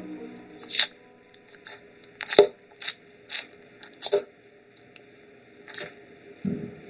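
Chewing and crunching: irregular crisp crunches every half second to a second, with a few louder bites.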